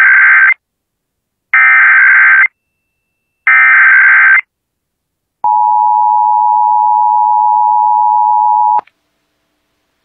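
Emergency Alert System broadcast tones: three shrill SAME data bursts of about a second each, a second apart, that encode the AMBER Alert. Then the two-tone EAS attention signal sounds steadily for about three seconds and cuts off sharply.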